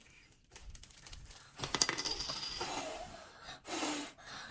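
A small hard object drops and clinks about two seconds in, with a brief high ringing afterwards, like a coin landing.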